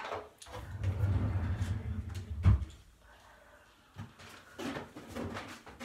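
Handling noise from pulling makeup and containers out of storage: low bumping and rustling, a sharp knock about two and a half seconds in, then a few light clicks and taps.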